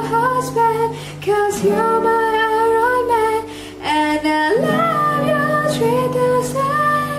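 A woman singing to her own strummed acoustic guitar, pausing briefly between phrases.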